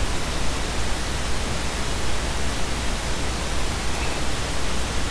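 Steady hiss with a low hum underneath: the recording's background noise, with nothing else standing out.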